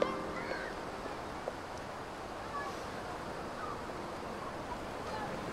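Beach ambience: a steady hiss of surf, with a few faint, short distant calls scattered through it.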